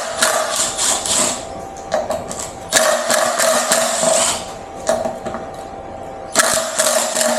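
Cordless electric screwdriver running in three bursts of about a second and a half each, a steady motor whine with clicking, backing out the screws of the electric unicycle's covers.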